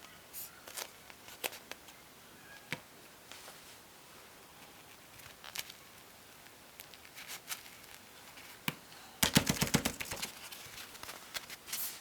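Light clicks and taps from fidget toys being handled, with a quick run of about a dozen sharp clicks about nine seconds in.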